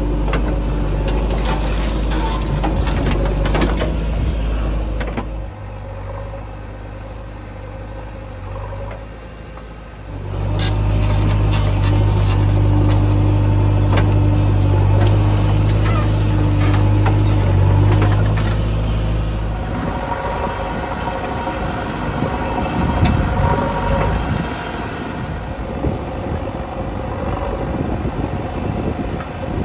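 Diesel engine of a JCB 3DX backhoe loader running under hydraulic load while the backhoe digs and tips soil into a tractor trolley. The engine note drops for about five seconds, comes back up strongly for about nine seconds, then turns rougher and more uneven, with scattered clattering, for the last third.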